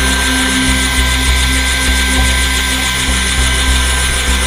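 Bell 205A1++ helicopter running on the pad: a steady high turbine whine from its turboshaft engine over a low, pulsing beat.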